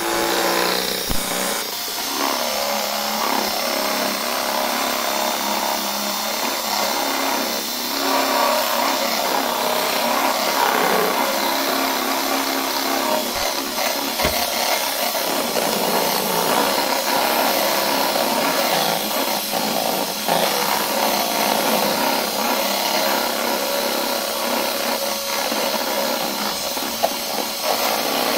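Electric hand mixer running steadily, its beaters whipping egg whites and sugar in a stainless steel bowl while they foam up and grow toward a stiff meringue.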